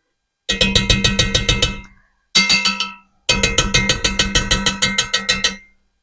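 A metal spoon rapidly tapping against ringing metal in three runs, knocking a tablespoon of tomato paste off into the pot; the metal rings with a steady pitch under the taps. Very loud.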